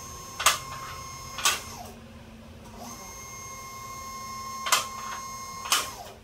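Four-post car lift raising a car: its electric hydraulic pump motor runs with a steady hum and high whine while the safety latches clack sharply past their slots, four clacks, two near the start and two near the end. The motor cuts off just before the end.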